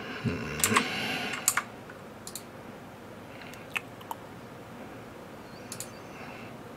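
Computer keyboard and mouse clicking: a quick flurry of clicks in the first second and a half, then single clicks a second or more apart.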